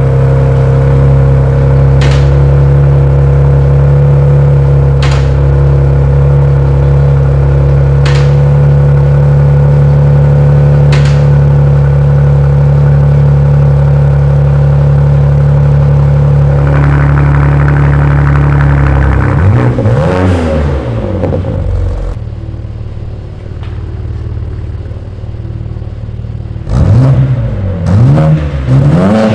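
BMW G80 M3's S58 twin-turbo straight-six idling steadily through an aftermarket exhaust with its valves closed, with a faint click about every three seconds. About two-thirds in the throttle is blipped, then blipped again a few times near the end, the pitch rising and falling with each blip.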